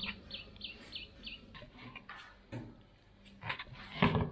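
A bird chirping in a quick series of short, falling chirps, about three a second, that stop about one and a half seconds in. A few sharp knocks follow, the loudest near the end.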